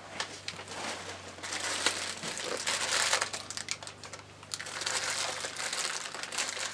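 Plastic packaging crinkling and crackling as the rack's caster wheels are handled and unwrapped, in two spells of rustling.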